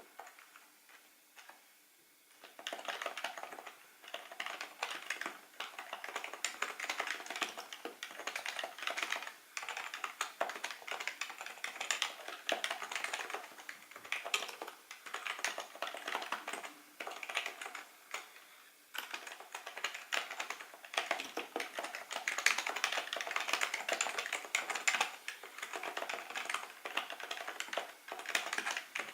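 Typing on a Happy Hacking Keyboard Professional2 Type-S, whose silenced Topre electrostatic capacitive switches give soft, muted key thocks. A few faint taps come first. Steady fast typing starts about two and a half seconds in and runs on, with a short pause about two-thirds of the way through.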